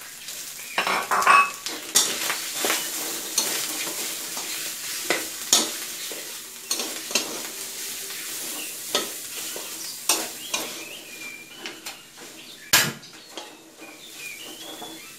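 Metal spatula scraping and knocking against a metal wok while stir-frying pork belly and fish balls in curry paste, over a steady sizzle. The strokes come irregularly, with a sharper knock near the end.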